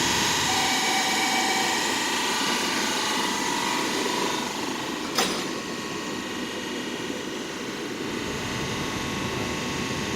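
SMRT C151A electric train pulling away, its traction equipment giving several steady whining tones over a continuous rattling rumble. A single sharp click sounds about five seconds in.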